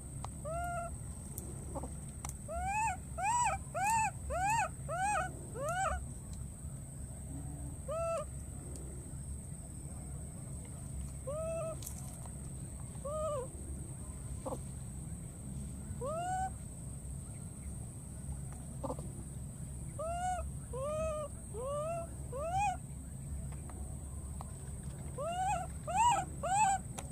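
Baby monkey crying again and again: short, high calls that rise and fall in pitch. There is a quick run of about six a few seconds in, then single calls spaced several seconds apart, and another quick cluster near the end. These are the cries of a lone infant.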